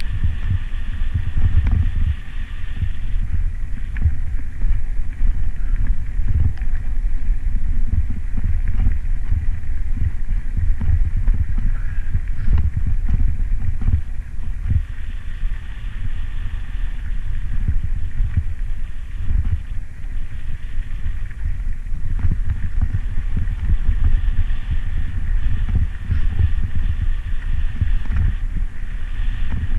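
A bicycle rolling downhill over a rough unpaved road, with a heavy low rumble of wind buffeting the microphone and frequent small knocks and jolts from the bumps.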